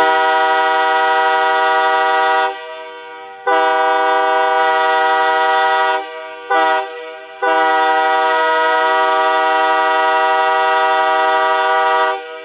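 Multi-chime locomotive air horn sounding a chord on compressed air, in four blasts: two of about two and a half seconds, a short toot, then a long blast of about four and a half seconds.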